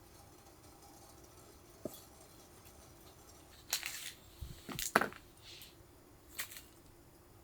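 Scattered light clicks and knocks of small objects being handled, the loudest a sharp knock about five seconds in.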